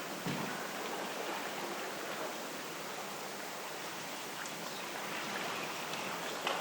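Steady rushing of wind and sea wash by a harbour, with a short low knock just after the start.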